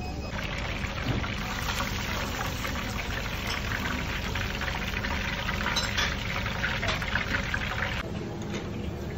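Breaded seafood rings deep-frying in a pan of hot oil: a dense sizzling crackle that drops away about eight seconds in. A steady low hum runs underneath.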